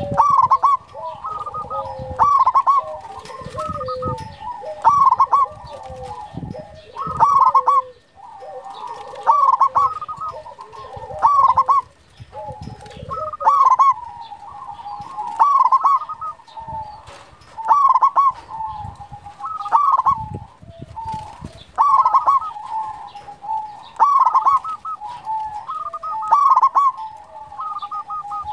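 Local zebra dove (perkutut) cooing: a run of rapid rippling coo phrases, with a louder phrase about every one to two seconds.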